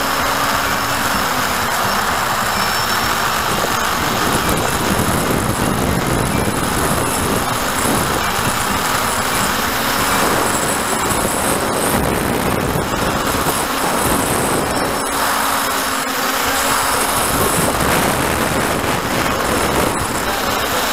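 Small drone's electric motors and propellers running in flight, a steady whirring rush mixed with air noise.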